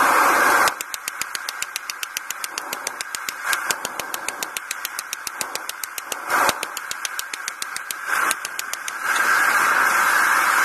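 Rapid, even hammer blows on hot steel at the anvil, about six a second, with a few louder strikes. A steady gas-forge roar fills the first moment and comes back near the end.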